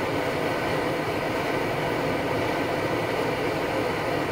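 MSR XGK EX pressurised liquid-fuel stove burning at full flame with a noise damper cap fitted over the burner, heating a pot of water close to the boil: a steady, even burner rush that does not change.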